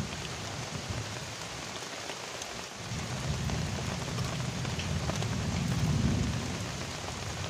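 Heavy rain falling steadily on the river and bank. A low rumble builds about three seconds in, is loudest about six seconds in, then eases.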